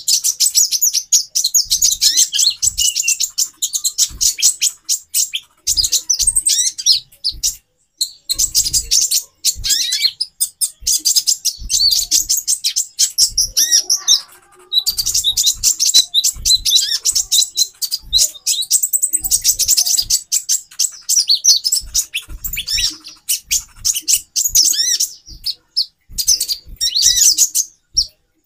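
Several female konin (kolibri ninja) sunbirds twittering together in rapid, high, overlapping chirps with hardly a pause, used as a lure to get male birds worked up. There is a brief lull about halfway through and short low thuds underneath.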